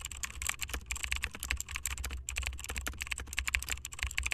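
Keyboard typing sound effect: a rapid, irregular run of key clicks over a low steady hum, keeping time with on-screen text typing itself out.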